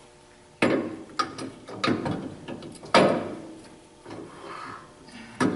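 Aluminum cylinder head being set down on a steel fixture table and shifted into place: a run of metal clunks and scrapes, with the loudest clunk about three seconds in.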